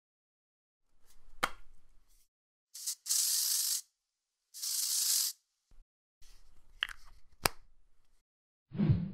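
Aerosol spray can: handling noise and a sharp click, then two hissing sprays of about a second each, then more handling with two clicks and a dull thump near the end.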